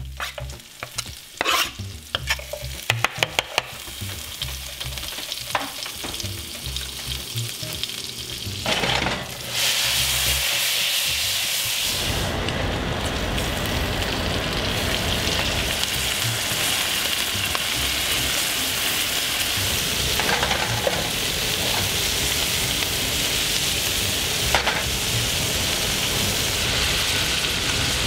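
Garlic sizzling lightly in melted butter in a frying pan, with a spatula scraping and tapping against the pan. About nine seconds in, the sizzle jumps to a loud, steady hiss as whole shell-on shrimp fry in the butter.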